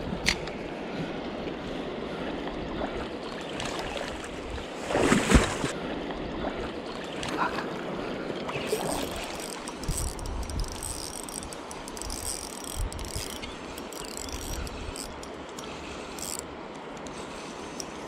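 Shimano Sephia spinning reel being wound, its mechanism ticking and whirring over the steady rush of river water. A short louder burst comes about five seconds in.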